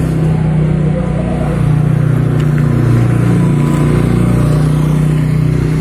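An engine idling steadily: a low, even hum that gets a little louder about a second and a half in.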